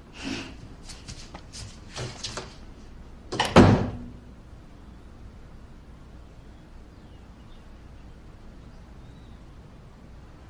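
A door being handled: several short knocks and clatters, then the door shutting with a loud thud about three and a half seconds in, followed by quiet room tone.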